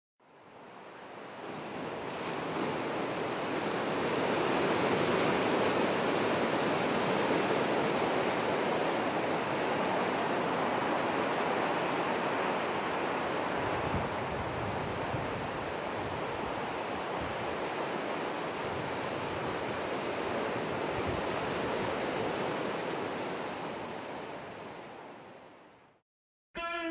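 Ocean surf breaking on a rocky beach, a steady wash of waves that fades in over the first few seconds and fades out near the end.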